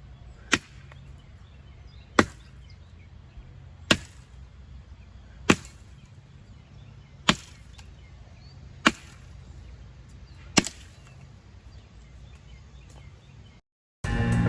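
Double-bit axe chopping pine wood: seven sharp strikes, evenly spaced about a second and a half to two seconds apart.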